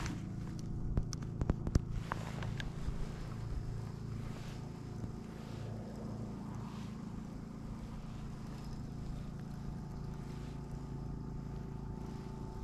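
Spinning reel being cranked to retrieve a lure, over a steady low hum. A few sharp clicks come in the first two seconds.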